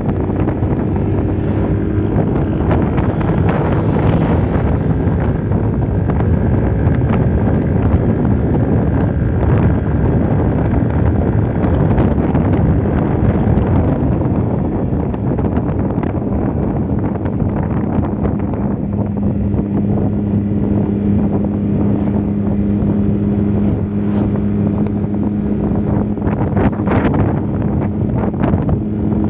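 Yamaha Aerox V2 scooter's single-cylinder engine and CVT running under way while riding, its CVT freshly cleaned, with heavy wind rushing over the microphone. The engine note holds steady and stands out more clearly in the second half.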